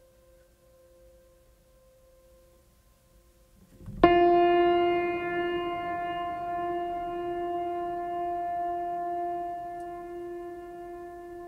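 Background music: a faint held tone, then about four seconds in a loud sustained note with rich overtones starts suddenly and slowly fades.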